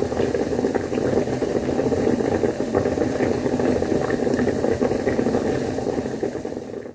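Water boiling hard in a pot, a steady dense bubbling with faint crackles, cutting off abruptly at the very end.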